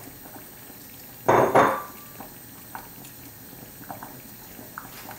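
A short clatter a little over a second in: a ceramic bowl knocked against an aluminium pressure-cooker pot as tamarind water is emptied into the sambar. A few light clinks follow.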